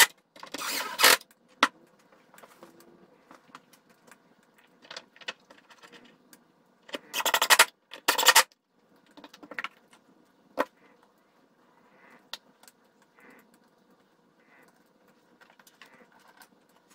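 Cordless drill driving screws into wood in short bursts: one near the start and a longer pair about seven to eight seconds in. Between the bursts come small clicks and rattles of screws and hardware being handled.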